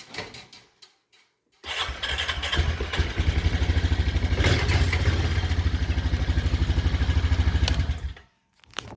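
A few clicks, then the single-cylinder engine of a Honda Rancher 420 ATV starts about two seconds in. It idles with an even, rapid putter and shuts off about a second before the end. The start is a check-run after fitting a new air filter.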